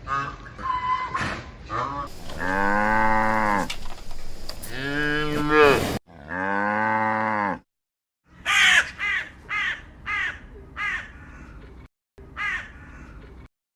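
Cows mooing: three long, low calls in a row. After a short break comes a quick run of about six short, crow-like caws, and one more caw near the end.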